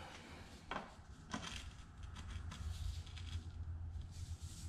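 Light metal clicks and handling noises as a SRAM SX crank arm carrying an oval chainring is lined up and pushed onto the bottom bracket spindle, with two sharper clicks in the first second and a half, over a low steady hum.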